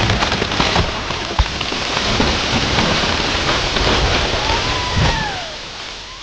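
A large buttressed tree crashing down through the forest: a long dense rush of breaking branches and thrashing leaves with sharp wood cracks, dying away about five seconds in. A short high call falling in pitch is heard just before the crash fades.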